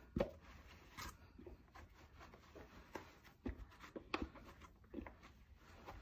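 A wet microfibre cloth rubbing faintly over a clear plastic microwave splatter cover, with a sharp knock just after the start and scattered light taps as the cover is handled.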